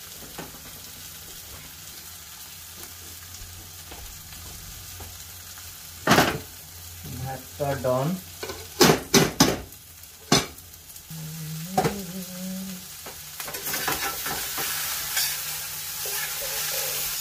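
Okra and potatoes frying in an iron pan, the sizzle growing louder as they are stirred near the end. About halfway through come several sharp clanks of a metal lid and utensils.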